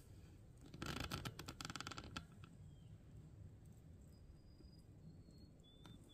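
Near quiet outdoors, broken about a second in by a second or so of close rustling and rapid clicking handling noise. After that a few faint, short high chirps, small birds in the woods.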